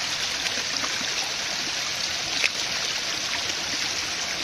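Small stream running over rocks: a steady rush of water, with a single sharp click about two and a half seconds in.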